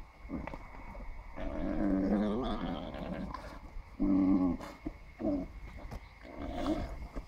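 Male llama orgling as he mates with a female lying down beneath him: a string of low, guttural, warbling calls in several bouts with short pauses between them.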